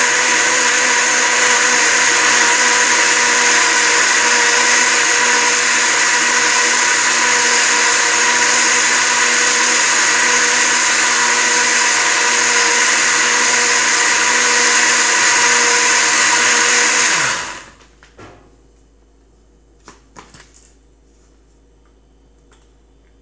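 Countertop blender running steadily, blending soaked oats and water into oat milk. The motor winds down and stops about three quarters of the way through, followed by a few faint clicks and knocks.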